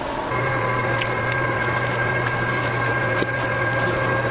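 Stand mixer motor running steadily as it beats butter in the bowl, a constant hum that starts about a third of a second in.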